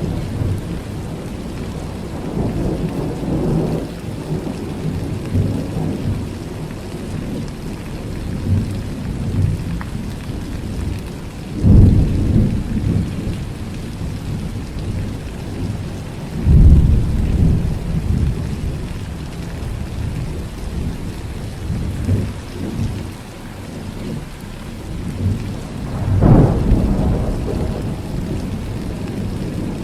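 Thunderstorm: steady rain with rolling thunder. Low rumbles swell and fade, and three louder claps break in suddenly, about twelve, sixteen and twenty-six seconds in.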